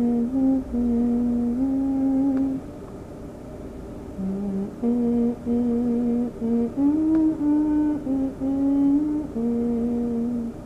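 A person humming a slow tune in held notes that step up and down in pitch, in two phrases with a pause of over a second between them, over a low rumble.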